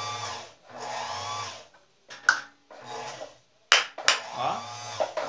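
Electric motor of a Singer Precisa household sewing machine whirring in short runs, about four times, as the foot pedal is pressed, with a few sharp clicks between them. The motor runs but the handwheel and sewing mechanism do not turn.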